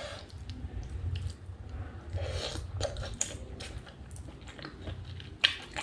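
Biting and chewing of pork innards eaten by hand, a run of irregular short clicks and mouth noises, with one sharper click near the end.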